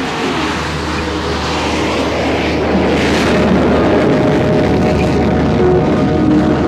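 Dassault Mirage 5BA jet fighter on its takeoff roll with the afterburner lit, a loud rushing jet noise that grows louder from a couple of seconds in and stays strong as the aircraft accelerates away.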